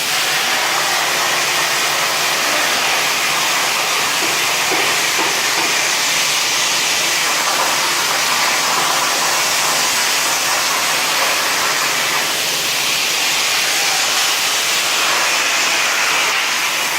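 CNC plasma cutter's arc and air stream hissing steadily and loudly as the torch cuts.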